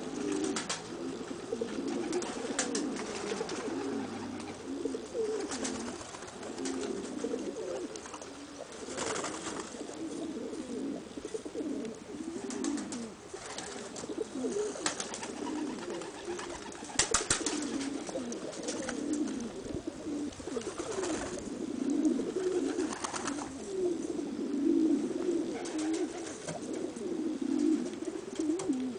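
Domestic pigeons cooing almost without pause, a low rolling coo of the kind a male gives while bowing and fanning his tail in courtship display. A few sharp clicks are heard now and then.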